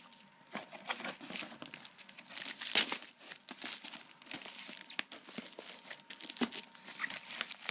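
Packaging crinkling, rustling and tearing as a box is opened by hand, with irregular crackles throughout and the loudest rip about three seconds in.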